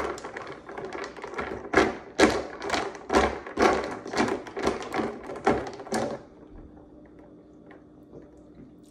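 Ice cubes clinking and rattling against a drinking glass as a straw stirs the drink: a run of quick knocks, about two or three a second, that stops about six seconds in.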